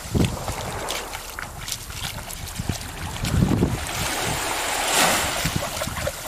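Wind buffeting the camera microphone in uneven low gusts, over the hiss of small waves washing onto a sandy shore, with a louder rush about five seconds in.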